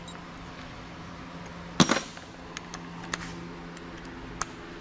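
Metal hand tools clinking as a long screwdriver is taken from a cluttered workbench: one sharp clack about two seconds in, then a few lighter clicks. A steady low hum runs underneath.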